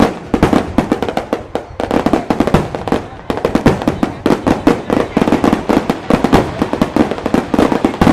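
Fireworks display going off: a dense, continuous run of sharp bangs and crackles, several a second.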